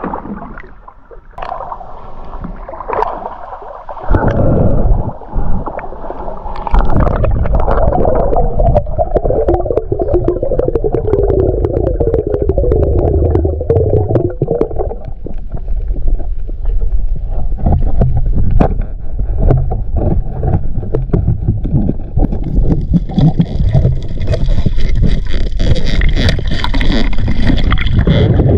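Underwater sound picked up by an action camera in its housing: a steady, muffled rumble of water moving past the camera, studded with sharp clicks and crackles. It grows much louder about four seconds in as the camera goes under, and a higher hiss joins near the end.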